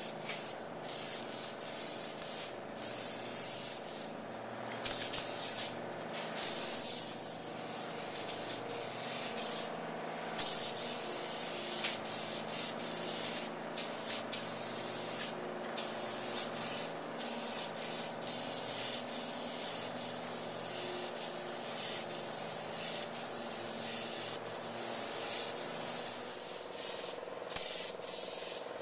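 Polyurea spray gun hissing steadily as coating is sprayed, the spray cutting out briefly a dozen or so times when the trigger is let go, over a steady machine hum.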